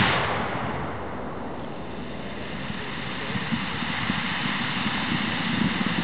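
Controlled detonation of a stack of old artillery shells: a sudden blast, then a long rolling rumble that carries on for several seconds without dying away.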